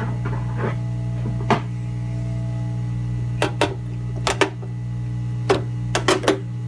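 Short clicks and knocks of a MacBook Pro logic board and its attached MagSafe board being handled and set down on a work mat: a single knock about a second and a half in, then quick clusters of clicks over the second half, over a steady low hum.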